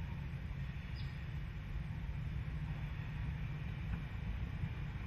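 Steady low rumble of the approaching Alco streamliner diesel locomotives 4473 and 4486, heard while the train is still some way off.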